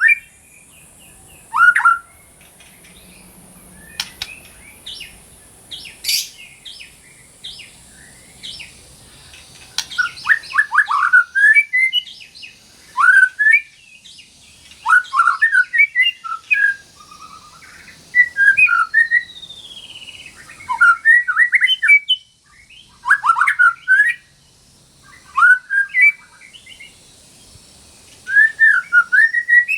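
White-rumped shama (murai batu) singing loudly: phrases of rapid whistled and chattering notes, each about a second long, with short pauses between them.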